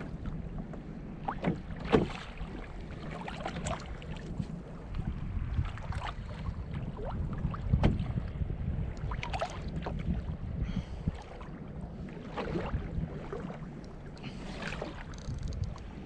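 Small waves slapping against a fishing kayak's hull at sea, with wind on the microphone and irregular splashes every second or two; the sharpest slap comes about two seconds in.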